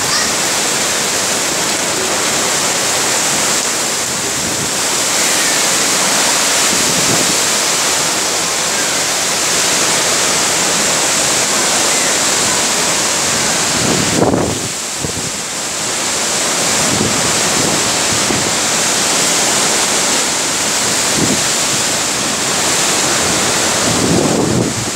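Cyclone-force wind rushing through trees and coconut palms: a loud, steady rush of noise, with a sharp gust and a brief lull about halfway through.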